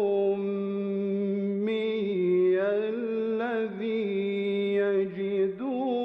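A man's voice in melodic Qur'anic recitation (tajweed), drawing out long held notes with wavering ornaments and a brief break about five seconds in.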